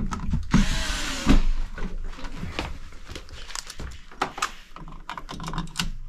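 Cordless screwdriver running briefly, driving a wall switch's mounting screw into the electrical box, followed by scattered small clicks and knocks as the switches are handled and seated.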